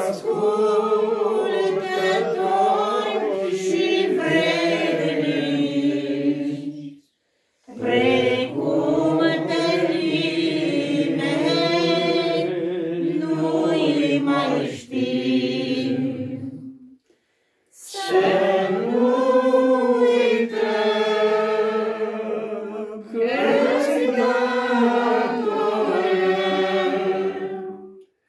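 A small group singing a Romanian hymn unaccompanied, in slow, long-held phrases with short breaks for breath between them, twice in the middle and once at the end.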